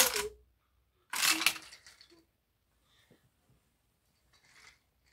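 Wooden toy train wagons and track pieces clacking and knocking together: two louder clatters, at the start and about a second in, then a few light taps.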